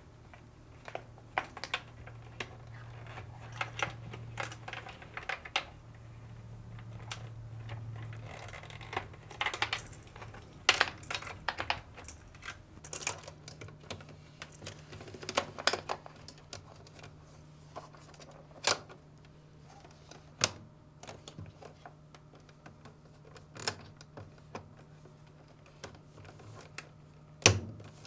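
Wires and a hose being handled and pressed into the plastic retaining clips on a washing machine's control module: scattered small clicks and rustles, one sharper click near the end.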